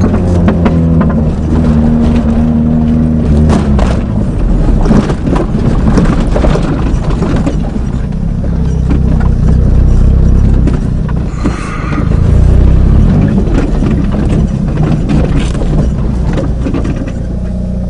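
Eagle Talon driven over a rough dirt farm track, heard from inside the cabin. A steady engine note for the first few seconds, then mostly the rumble of the car over uneven ground, with many knocks and rattles.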